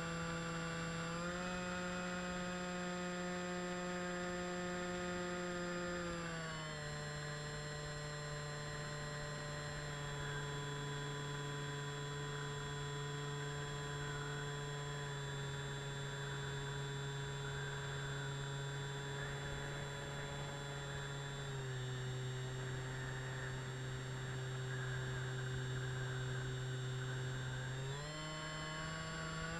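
Motor and propeller of an FPV model aircraft, heard from its onboard camera, running with a steady whine. The pitch drops a step about six seconds in and again past the twenty-second mark, then climbs back near the end as the throttle is changed.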